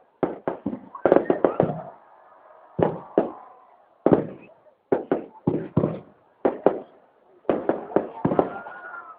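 Fireworks bursting overhead: an irregular run of sharp bangs, several coming in quick clusters, with short gaps between volleys.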